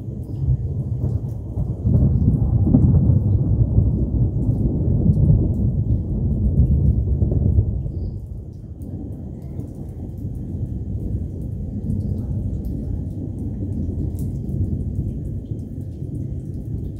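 A long roll of thunder rumbling, swelling about two seconds in and easing off after about eight seconds into a lower, continuing rumble.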